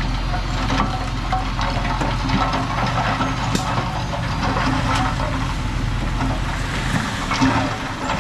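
Heavy earthmoving machinery's diesel engine running steadily, with scattered sharp knocks and clanks.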